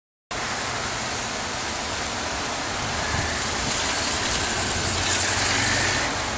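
Steady outdoor rush of wind and distant road traffic, with a low engine hum underneath, swelling slightly in the middle as a storm approaches.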